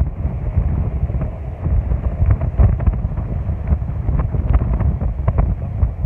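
Strong sea wind buffeting the microphone: a loud, low rumble that gusts up and down.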